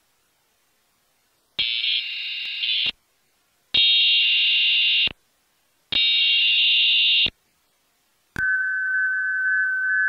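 Emergency Alert System test broadcast: three bursts of digital header data tones, each about a second and a half long with short gaps between, then, about eight seconds in, a steady alert tone starts and holds.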